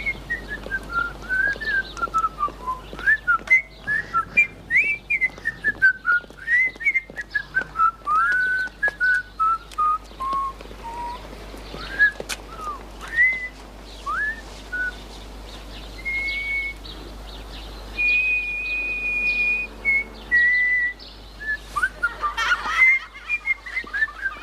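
A person whistling a tune: a string of short notes that slide up and down. About three-quarters of the way through comes one longer, held high note.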